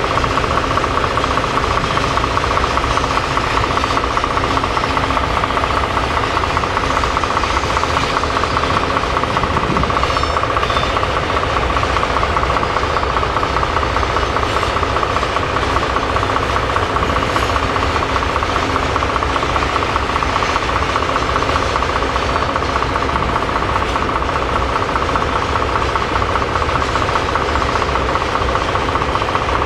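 Large diesel locomotive engine idling close by, a steady loud running with a constant hum and rapid even pulsing.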